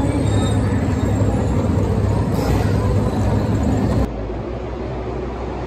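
A field of NASCAR Cup Series V8 stock cars rumbling steadily at low speed behind the pace car. About four seconds in, the sound cuts to a quieter, more distant steady engine drone.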